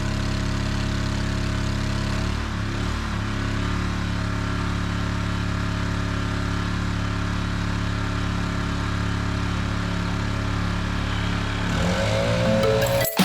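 An engine idling steadily, its pitch rising as it revs up about twelve seconds in, then cutting off abruptly.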